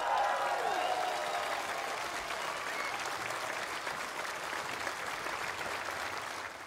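A large audience applauding steadily, with cheers and whoops in the first second or so, as the song ends; the applause cuts off abruptly at the end.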